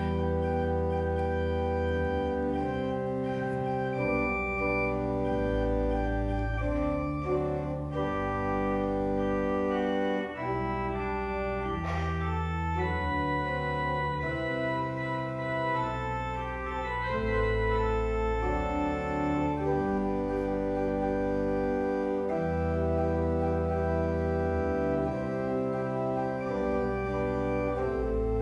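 Organ playing a slow piece of sustained chords over low pedal notes that change every second or two.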